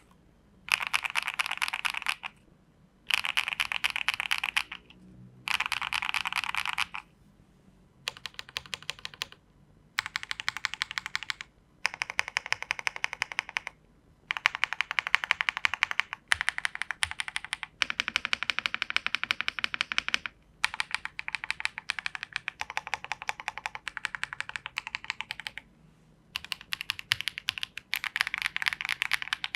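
Swagkeys Eave 65 mechanical keyboard, a gasket-mounted board with a polycarbonate plate and foam inside, fitted with HMX Xinhai switches and ABS doubleshot keycaps, being typed on fast. The keystrokes come in runs of one to three seconds with short pauses between them.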